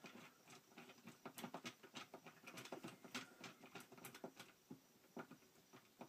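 Faint, irregular ticks and scrapes of a small screwdriver turning a screw terminal on a solar charge controller, clamping a thin wire under the screw.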